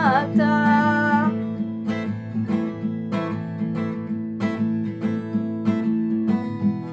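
Acoustic guitar strummed in a steady rhythm of chords, with a sung word held and wavering at the start before the guitar carries on alone.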